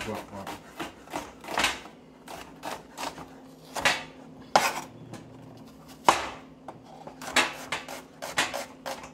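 Large kitchen knife slicing onion on a wooden cutting board: each cut ends in a sharp knock of the blade on the wood, at an uneven pace, coming faster near the end.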